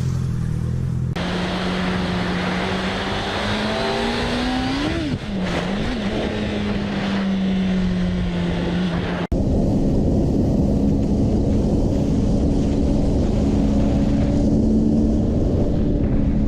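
Motorcycle engine running at speed under wind and road noise. About 5 s in the revs climb, then drop and waver. The sound cuts abruptly twice, about 1 s and 9 s in, and after the second cut a louder engine drones steadily.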